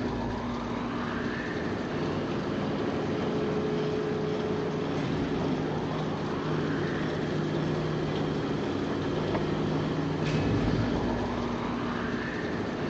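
Film sound effect of an engine hum: a steady low machinery drone of several held tones. A faint rising whine repeats about every five to six seconds, and there is one sharp click about ten seconds in.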